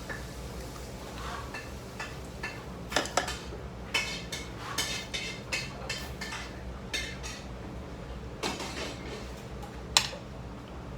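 Eating utensils clinking and tapping against dishes, a scattering of sharp clicks with brief metallic ringing, the loudest about ten seconds in, over a steady low hum.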